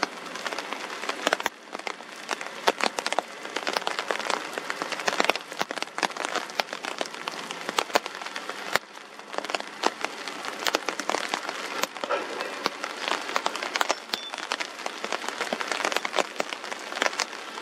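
Steady rain falling, with dense irregular clicks of drops hitting a nearby surface.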